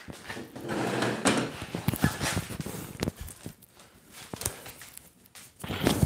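Clip-on lavalier microphone being handled and fastened to a T-shirt collar: cloth rustling against the mic and scattered sharp clicks and knocks.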